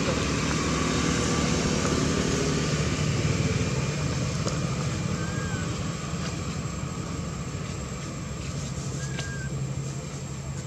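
A vehicle engine running steadily with a low hum that slowly fades. Two short, high chirps come about five and nine seconds in.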